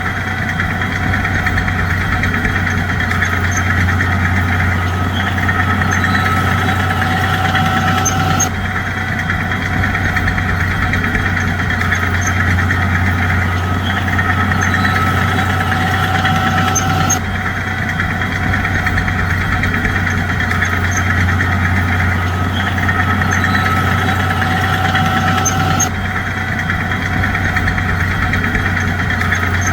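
Bulldozer's diesel engine running steadily with a deep hum; the same few seconds of sound repeat about every nine seconds, as a looped track.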